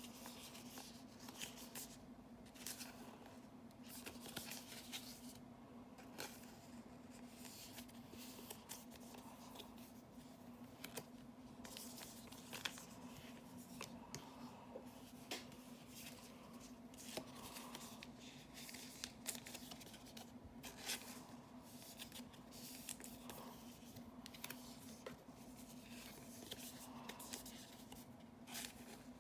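Faint handling of Magic: The Gathering cards: cards sliding and flicking against each other as a pack is sorted, in many short clicks and rustles. A low steady hum runs underneath.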